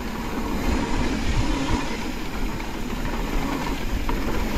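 Bicycles rolling fast down a dirt singletrack: steady tyre and wind rumble, with short rattles and knocks as the bikes go over bumps.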